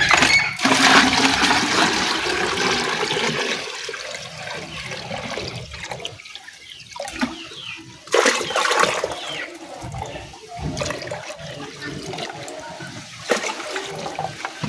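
Liquid pouring and splashing into a container, loudest and most continuous in the first few seconds, then fainter intermittent splashes and handling noises.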